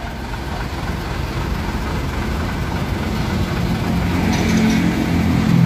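Motor vehicle engine running, with a low drone that grows louder over the last two seconds.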